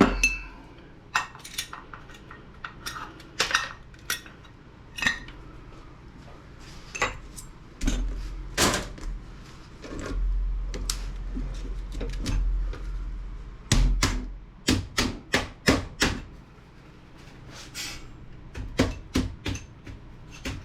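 Metal scrap parts from an old radio clinking and clanking as they are handled and pried apart by hand: a string of sharp, irregular knocks, with a quick run of them about two-thirds of the way through.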